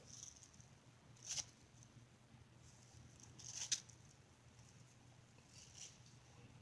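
Hairbrush swishing through long hair, working at a tangle, in three short faint strokes: about a second in, the loudest at about three and a half seconds, and one near the end.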